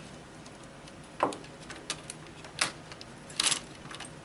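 Light plastic clicks and taps of a laptop's screen bezel being handled and fitted into place, about half a dozen scattered ones with a quick pair near the end.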